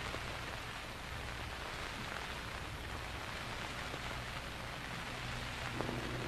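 Surface noise of an old Vitaphone disc recording between spliced songs: a steady hiss and crackle over a low hum. Faint steady tones begin near the end.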